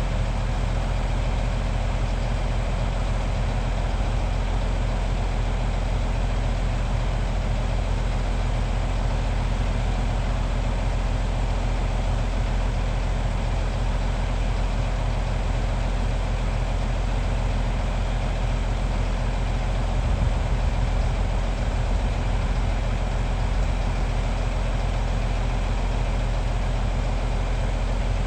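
Large excavator diesel engine running steadily at idle, a low, even drone.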